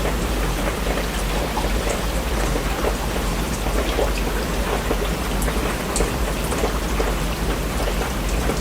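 Steady rain falling, with many separate drops ticking on a surface over an even hiss, and a steady low rumble underneath.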